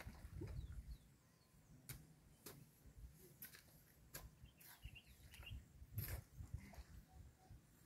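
Faint scattered knocks of hand tools working wet soil at the pond bank, a few faint bird chirps near the middle, all over a low rumble.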